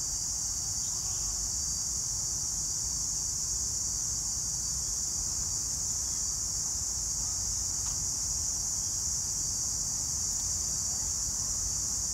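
Steady, high-pitched chorus of cicadas in the trees, unbroken throughout, with a low rumble underneath.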